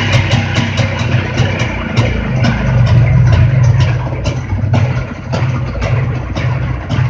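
Jawa two-stroke motorcycle engine running after a repair, with sharp clicks repeating about two to three times a second over a steady low drone. The owner says it now runs without noise or knocking.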